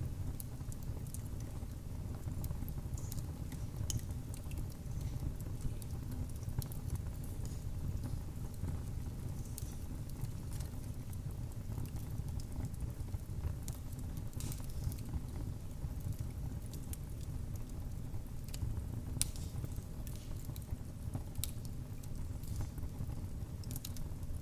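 Wood fire in a fireplace crackling, with a steady low rumble of burning and irregular sharp pops and snaps, one louder pop about two-thirds of the way through.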